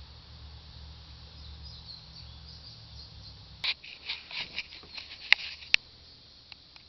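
A low steady hum that cuts off a little past halfway, then a scatter of small clicks and taps, the two sharpest near the end.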